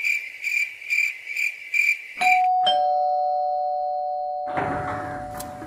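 Electronic doorbell: a quick run of about five high beeps, then a loud two-note ding-dong chime that rings on and slowly fades. Broad noise follows near the end.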